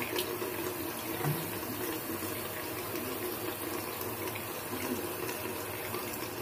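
Steady rush of water at a bathroom sink, with a few soft splashes as water is brought up onto the face to wet it before shaving.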